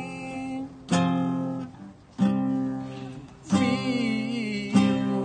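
Acoustic guitar strummed in slow chords, about one strum every second and a bit, each left to ring out, with a man's voice singing along over it.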